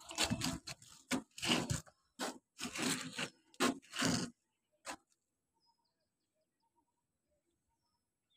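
Irregular rustling and scraping noise, a run of short bursts for about four seconds, then near silence for the rest.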